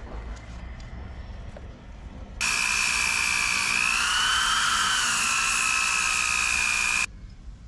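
Angle grinder switched on and grinding a G10 fiberglass block, a steady high whine with a gritty hiss that starts suddenly a couple of seconds in and stops abruptly near the end. Its pitch wavers slightly as the disc bites.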